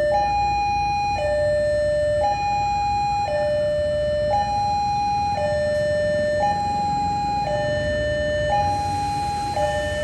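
Railway level-crossing warning siren sounding its two-tone alarm, a higher and a lower tone alternating about once a second. This is the crossing signal for an approaching train.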